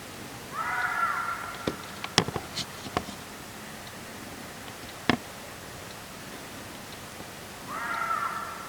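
Reeves's muntjac calling twice, harsh drawn-out calls about a second long each and some seven seconds apart. Several sharp clicks fall between the two calls.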